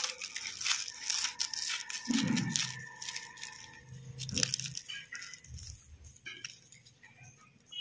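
A knife cutting through a grilled sandwich toasted in a sandwich maker. The crisp bread crust gives a run of irregular short, sharp sounds.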